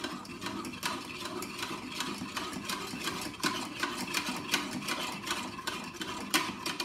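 A fork beating egg yolks and milk in a clear measuring jug, clicking rapidly against the jug's sides several times a second with a light sloshing of the liquid.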